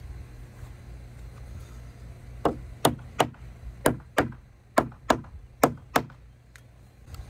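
Claw hammer striking nails in a weathered wooden swingset frame: about nine sharp knocks, often in quick pairs, starting about two and a half seconds in and stopping about a second before the end. The nails are being tapped back flush so they stay snug in the frame.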